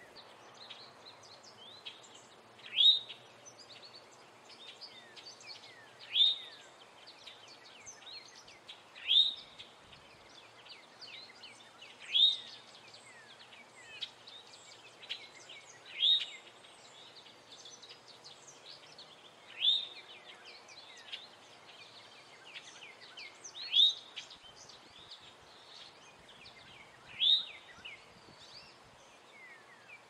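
Male eastern towhee giving its alarm call, a short rising note, eight times at about one every three and a half seconds. Fainter high chirps sound in the background between the calls.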